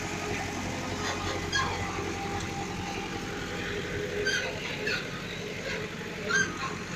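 Road-paving machinery running steadily, a road roller's diesel engine close by, giving a continuous low hum, with a few short high chirps in the second half.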